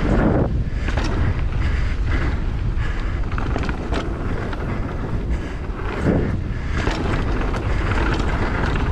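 Whitewater creek rushing loudly around a rider running a rapid, with wind buffeting the microphone and a surge of splashing about six seconds in.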